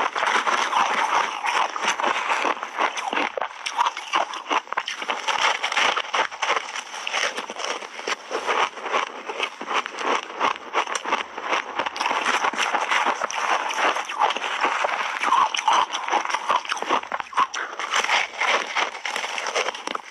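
Shaved ice coated in matcha powder being bitten and chewed close to lapel microphones: a dense, irregular stream of crisp crunches and crackles.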